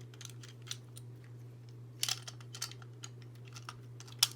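Light plastic clicks and rattles of a Beyblade power launcher being handled and set to left spin, with a sharper click near the end, over a steady low hum.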